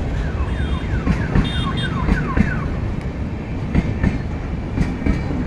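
Passenger train's chair-car coaches rolling past at speed: a steady rumble of wheels on rail with scattered clicks, and a run of short falling high-pitched squeaks in the first half.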